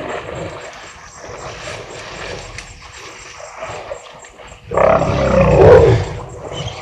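African elephant vocalising: one low roar lasting about a second and a half, starting a little past the middle, over the quieter sounds of the herd at the water.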